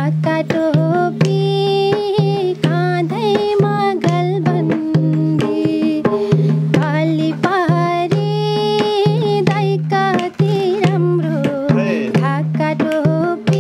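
Woman singing a Nepali Teej folk song while accompanying herself on a madal, the double-headed Nepali hand drum, its strokes keeping a steady rhythm under her voice.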